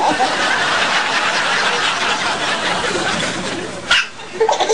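People laughing and snickering breathily around a baby, with one sharp, sudden baby hiccup about four seconds in.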